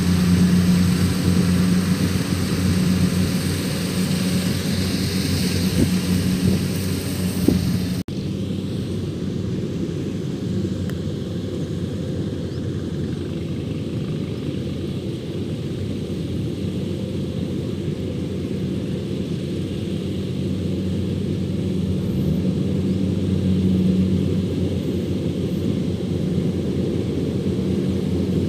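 Kubota DC-105X combine harvester's diesel engine running steadily under load as it harvests rice: a continuous low drone with a steady hum. About eight seconds in, the sound breaks for an instant and carries on duller.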